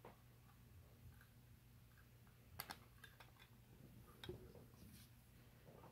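Near silence, broken by a few faint clicks of trading cards being handled: two close together about two and a half seconds in, and another a little after four seconds.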